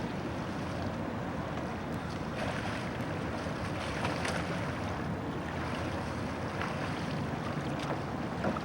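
Steady wind buffeting the microphone over open water, with water lapping and a few faint splashes.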